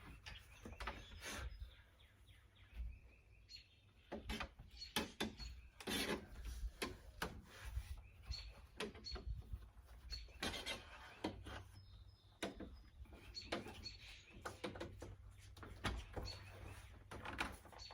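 Irregular rubbing, scraping and light knocks as a flexible screen is pressed and worked into a storm door frame, its edges being forced into the corners because it is slightly too large.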